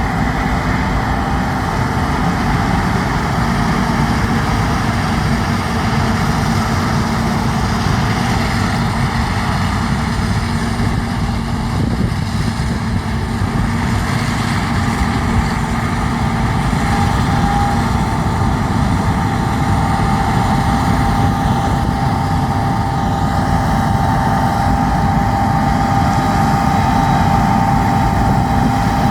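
Heavy farm machinery engine running steadily, with a steady whine that grows stronger a little over halfway through.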